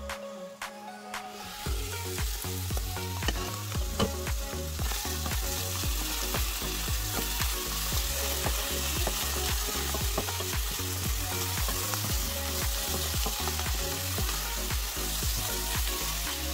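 Diced zucchini and mushrooms sizzling in a hot frying pan while a wooden spoon stirs them, with frequent short scrapes and taps of the spoon against the pan. The sizzling sets in about two seconds in and stays steady.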